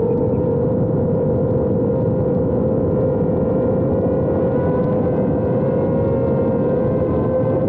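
FPV quadcopter's electric motors and propellers whining steadily, the pitch creeping slightly upward, over a rough low rushing noise.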